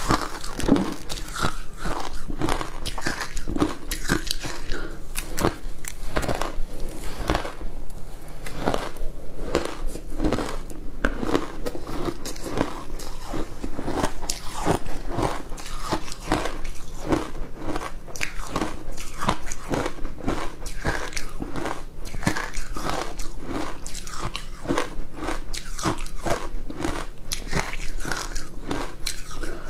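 Ice coated in milk powder being bitten and chewed: a continuous run of crisp crunches, several a second.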